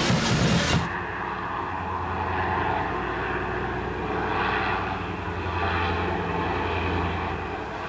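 Zeppelin NT airship's propeller engines droning steadily overhead, a low even hum that swells a little now and then. Music cuts off about a second in.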